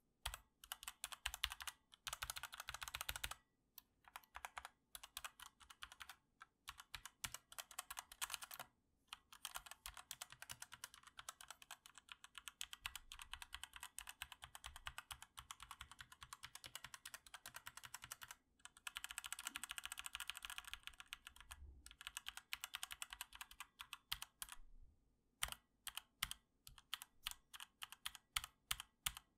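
Typing on a Redragon K568R tenkeyless mechanical keyboard with red linear switches: runs of rapid keystrokes broken by short pauses. The reviewer says these switches have a ringing spring sound.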